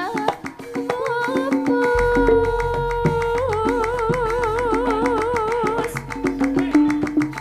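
A Javanese gending played by a live ensemble: quick repeated struck and plucked notes under a long held melody note that wavers with vibrato from about three to six seconds in, over a deep low tone.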